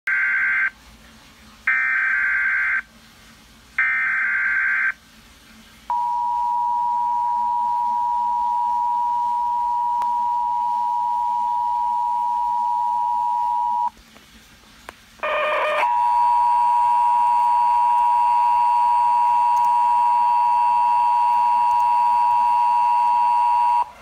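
Emergency Alert System tones coming through laptop speakers. It opens with three roughly one-second SAME data header squawks, then a NOAA Weather Radio single-tone warning alarm held steady for about eight seconds. After a short squawk, the two-tone EAS attention signal is held steady for about eight seconds, marking a tornado warning about to be read.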